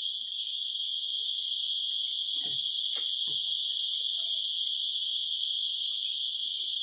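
Loud, steady, high-pitched drone of a tropical forest insect chorus, with a few faint knocks near the middle.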